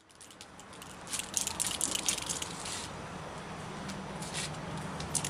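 Outdoor street ambience fading in from silence: a steady low hum under irregular crackling, gritty noises, thickest in the first few seconds.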